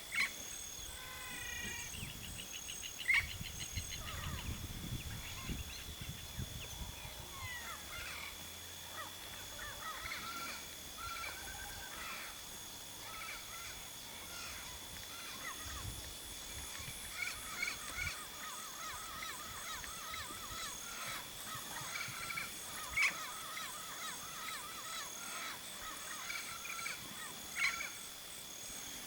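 Turquoise-fronted parrots (Amazona aestiva) giving harsh squawking calls, a few loud ones standing out, amid a continuous chorus of other bird calls.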